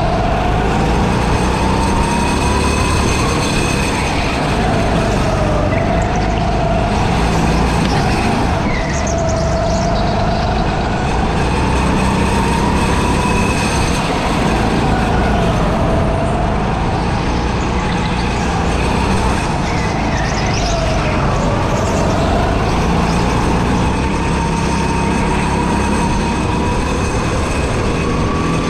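Rental go-kart driven at speed through a lap, a steady rumble under a whine that rises and falls every few seconds as the kart speeds up on the straights and slows for the corners.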